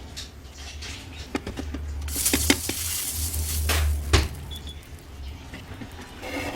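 Kitchen clatter: several sharp knocks and clinks of utensils and dishes, with a short hissing stretch about two seconds in and a louder knock about four seconds in.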